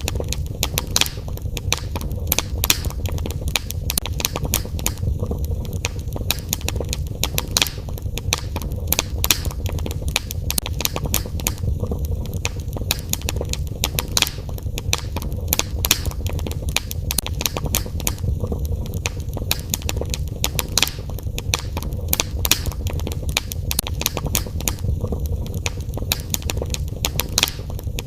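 Fireplace fire crackling, with frequent sharp, irregular pops over a steady low rumble.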